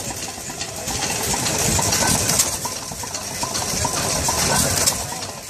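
Hit-and-miss engine running and driving a Marvel draw cut power hacksaw, with a steady clatter of small clicks and knocks from the machinery.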